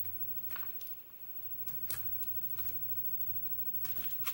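Razor blade cutting and scraping at tape wrapped around a key: a few short scratchy strokes and clicks, with a cluster near the end.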